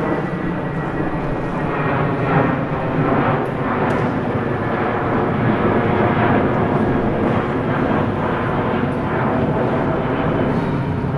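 Airliner's engines running, loud and steady, as during a take-off.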